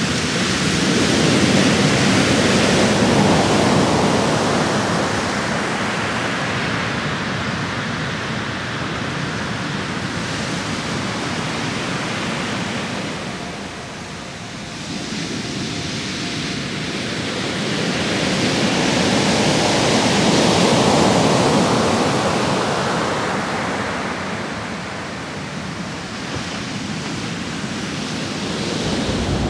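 Heavy surf breaking on a sand beach from a sea still rough after a storm: a continuous rushing wash of water that swells and eases, loudest in a surge at the start and again about two-thirds through.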